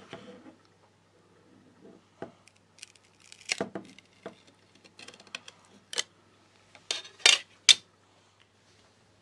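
Plastic pry card being worked around the glued back cover of a Xiaomi phone, cutting the adhesive: an irregular string of sharp clicks and snaps, the loudest three close together near the end as the cover comes free.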